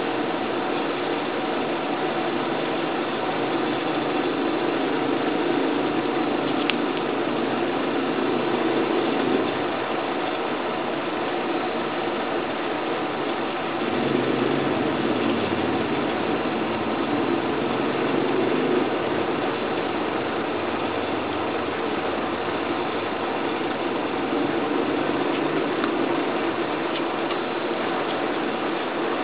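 Steady mechanical whirring noise that swells and eases every several seconds.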